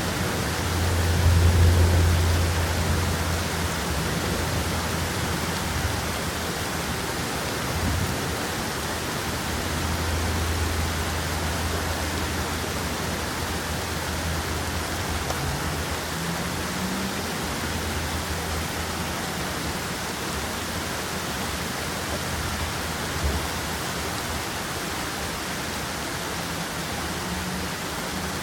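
Steady rain, an even hiss that runs unchanged. A low rumble swells about a second in and again around ten seconds in.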